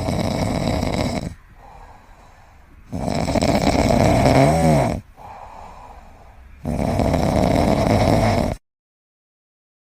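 Snoring: three long, loud snores roughly three seconds apart, with quieter breathing between them. The middle snore has a warbling pitch that rises and falls. The sound cuts off suddenly near the end.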